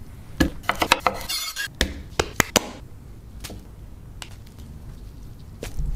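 Kitchen handling sounds from a cooking clip: sharp clicks and clatter of utensils and dishes, with a short scraping rustle about a second and a half in, then a few scattered clicks.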